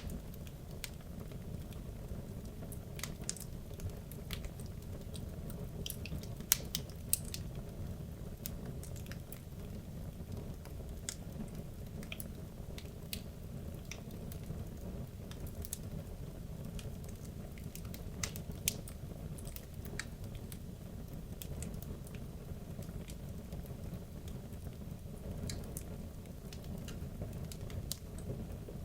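Wood logs burning in a fireplace: a steady low rumble of flames with irregular sharp crackles and pops scattered throughout, a few louder snaps among them.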